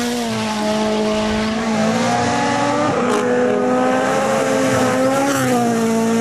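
Rally car engine held at high revs, a steady high-pitched note, with a brief break and a sharp click about three seconds in as the car speeds along a gravel road.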